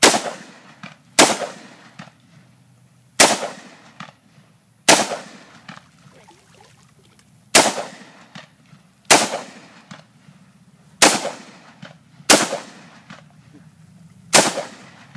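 AK-47 rifle firing single 7.62×39 mm shots, nine sharp cracks about one to three seconds apart, each with a short echo.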